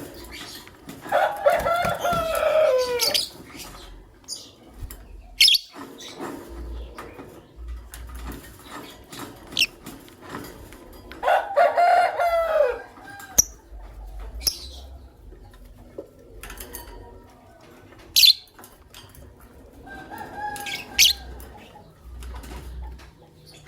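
Caged lovebirds, masked lovebirds among them, calling with short, sharp high chirps scattered through the stretch. Two longer, lower drawn-out calls, about a second in and again about eleven seconds in, each fall in pitch at the end.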